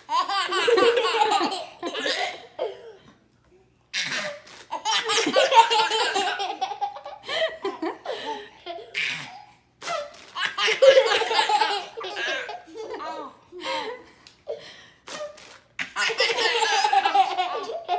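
A baby laughing hard in four long bouts of belly laughter, with shorter giggles in the pauses between.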